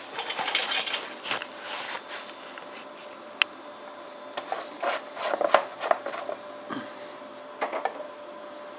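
Plastic filler cap being twisted and pulled off a Scag Tiger Cub's hydraulic oil reservoir by a gloved hand: rubbing and scraping of plastic, with a few sharp clicks.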